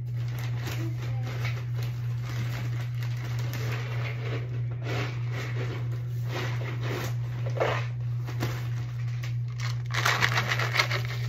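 Crinkling and rustling of packaging being handled, in irregular bursts that grow louder near the end, over a steady low hum.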